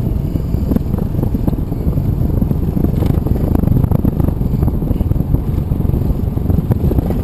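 Steady low rumble of wind buffeting the microphone while a small battery-powered fire-truck replica rolls along a paved road, with a few light rattles.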